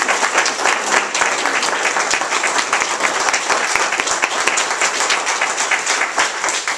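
Small audience applauding with steady, dense clapping that stops abruptly at the end.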